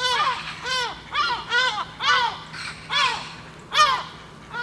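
Birds giving repeated alarm calls, roughly two a second, each call arching up and then down in pitch. These are mobbing calls aimed at a perched Harris's hawk, a bird of prey.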